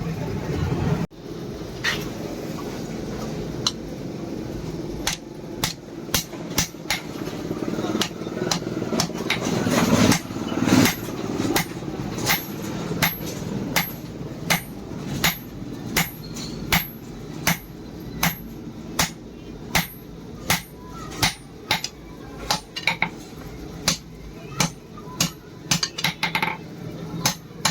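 Hand hammer blows on leaf-spring steel over an anvil, forging the blade: sharp ringing strikes, a few scattered at first and then a steady run of about one to two a second, over a continuous low hum.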